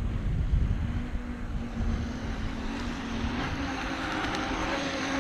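RC speedboat's motor running as a steady whine that rises slightly in pitch from about a second in, with a water-spray hiss growing in the second half. Wind rumbles on the microphone in the first part.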